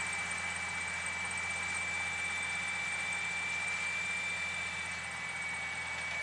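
Fendt 712 tractor driving a power harrow and seed drill, heard at a distance: a steady engine drone under a constant high-pitched whine from the PTO-driven machinery.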